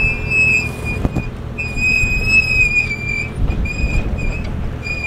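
First-generation Ford Raptor pickup crawling over rocks: a low engine and tyre rumble under a high, wavering squeal that breaks off and comes back several times.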